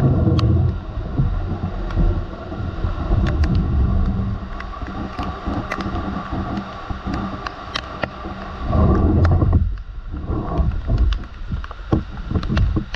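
Rain falling on corrugated metal and clay-tile roofs, with scattered sharp ticks of drops striking the GoPro, and low rumbling gusts of wind on the microphone near the start and again about nine seconds in.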